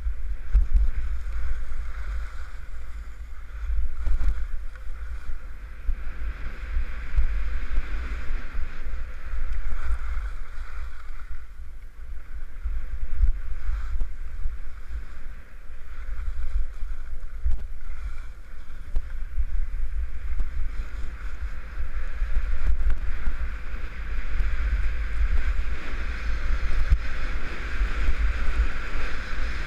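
Wind buffeting a helmet-mounted camera's microphone during a ski descent, a heavy gusting rumble, over the hiss of skis sliding and carving on packed snow that swells and fades with the turns.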